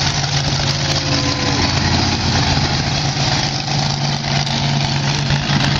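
Monster truck engine running loud and steady at low throttle as the truck rolls slowly past, without revving.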